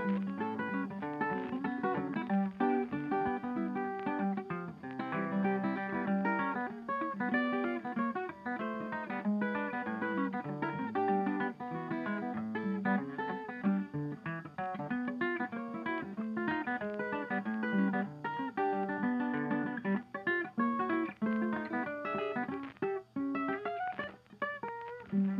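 Background music: acoustic guitar playing a busy run of plucked and strummed notes.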